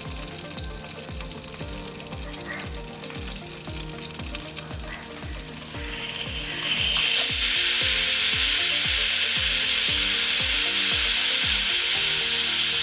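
Pressure cooker's first whistle: steam starts hissing out loudly under the weight about six to seven seconds in and keeps going steadily. It is the sign that the cooker, with chicken deep-frying in oil inside, has come up to pressure.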